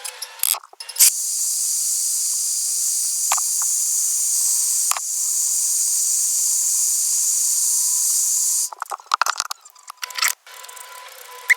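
Aerosol spray can hissing in two long, steady sprays of about four seconds each, with a brief break between them. There is light rustling and handling before and after.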